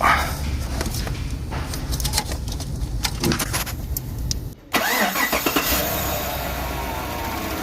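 Chevrolet Tahoe V8 engine running, cutting out briefly about four and a half seconds in, then starting again and settling to a steady idle. It is misfiring from a faulty ignition coil.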